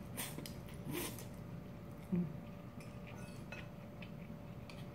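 Spaghetti being slurped up twice in the first second, then quieter chewing and a few light clicks of a fork against the bowl.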